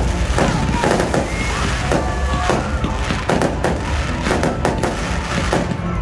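Fireworks display: aerial shells and rockets bursting in a rapid, irregular run of sharp cracks and bangs.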